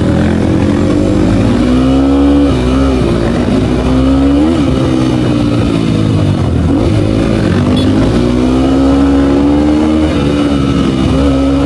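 Motorcycle engine under way, its pitch climbing and dropping back again several times as the rider opens and closes the throttle.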